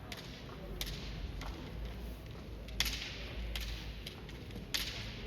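Sharp cracks of bamboo kendo shinai striking one another and the armour: two lighter hits around the first and second second, then two louder ones near three seconds and near the end.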